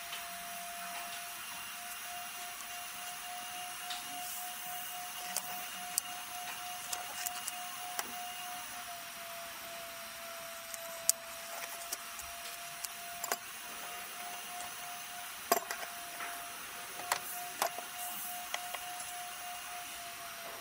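A steady hum held at one pitch over a faint hiss, with scattered sharp clicks and light knocks, a few of them louder in the second half.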